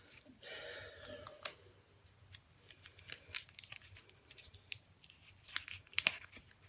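A cough drop wrapper being torn open and crinkled: an irregular scatter of sharp crackles and snaps, the loudest about six seconds in.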